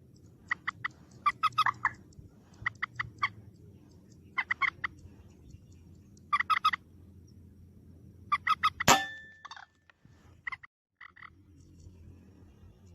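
Common moorhen calling in repeated bursts of rapid clucking pulses. About nine seconds in, a single sharp crack with a short metallic ring sounds: an air-rifle shot.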